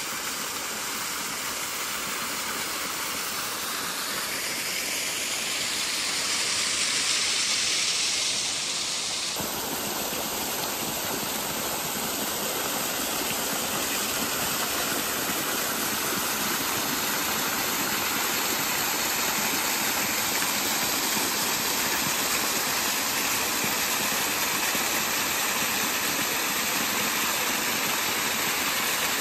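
Spring water gushing out at a spout, a steady rush of flowing water.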